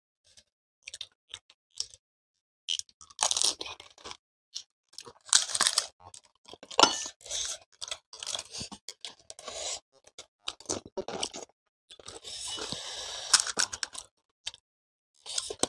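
Crunching and chewing of panipuri: the crisp hollow puri shells cracking and being chewed in irregular bursts, with small clicks in between.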